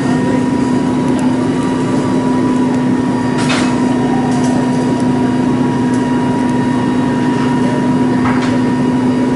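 Heavy construction machinery engine running steadily with a constant low hum at an unchanging pitch.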